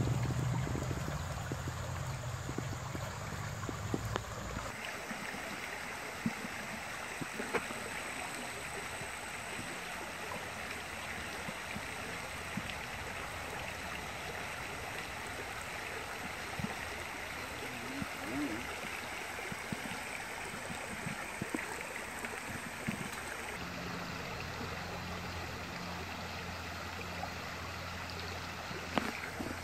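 Small creek waterfall spilling over a rock ledge into a pool: a steady rush of running water. A low rumble sits under it for the first few seconds.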